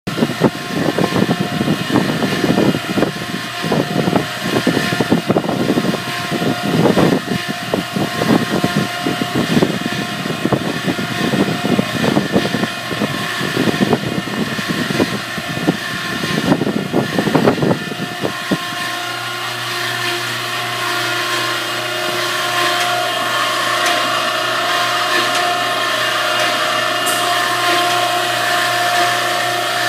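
Okamoto ACC 124N hydraulic surface grinder running under power, with its 5 HP spindle and 2 HP hydraulic pump. For the first part the sound is a rough, irregular churning noise. About 19 seconds in it changes to a steady machine hum with a constant whine.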